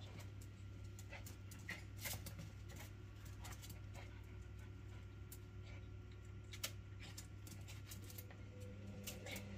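Faint sounds of a dog and a cat play-fighting on carpet: soft scuffs and scattered light clicks from paws and claws over a low steady hum.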